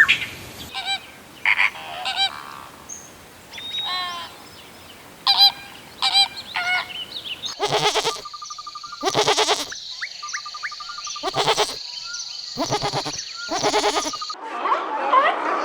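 A run of animal calls that changes abruptly twice: scattered short calls, then loud repeated calls over a steady high tone, then a dense chatter of small chirps near the end.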